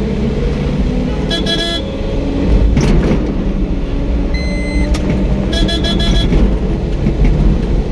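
Steady road and engine rumble heard inside a moving car, with short vehicle-horn toots about a second and a half in and again around six seconds.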